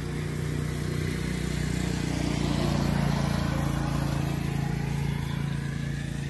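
Small motorcycle engine passing by, a steady drone that grows louder to a peak about halfway through and then fades.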